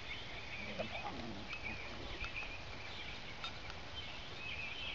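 Quiet outdoor ambience with birds chirping repeatedly in the background and a few faint ticks.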